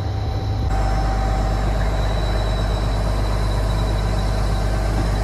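Truck-mounted crane's diesel engine running steadily under load, a deep hum with a thin steady whine above it. It steps up slightly just under a second in.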